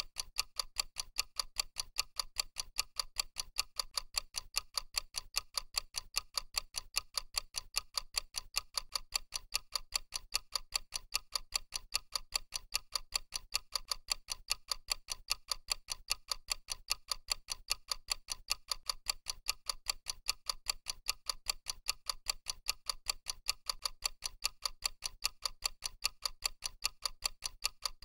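Clock-tick sound effect of a countdown timer: a steady run of evenly spaced, crisp ticks.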